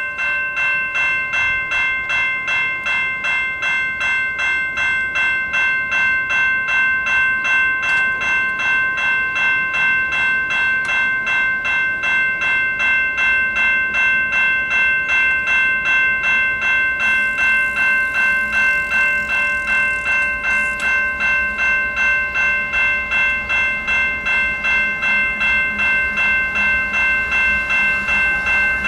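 Railway level-crossing warning bell ringing in rapid, evenly spaced strikes as the gate arms come down, signalling an approaching train.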